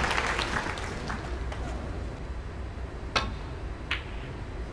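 Audience applause dying away into a hushed arena, with two short sharp clicks about three and four seconds in.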